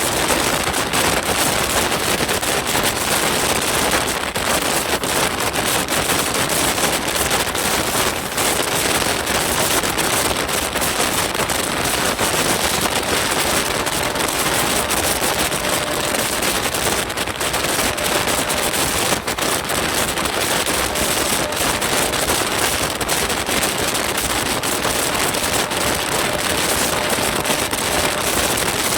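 Express passenger train running at speed: a steady loud rush of wheels on rail and wind, packed with rapid irregular clattering from wheels over rail joints and points.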